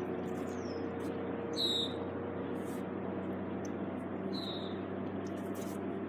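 Steady low hum of a boat's motor running, with two short, falling bird chirps, about one and a half and four and a half seconds in.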